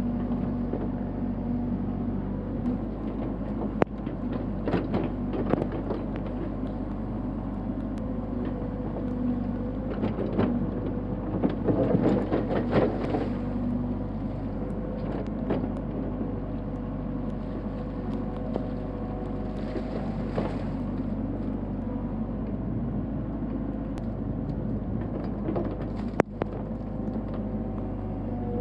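Excavator engine running steadily, with scattered knocks and crackling as it works, and sharp knocks about four seconds in and again near the end.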